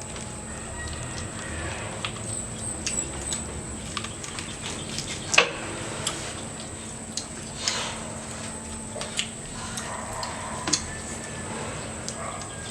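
Scattered light clinks and taps of utensils against dishes during a meal, with one louder clack about five seconds in.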